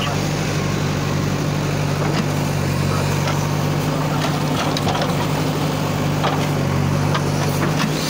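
Diesel engine of a JCB backhoe loader running steadily as it digs, with a few faint clicks and knocks.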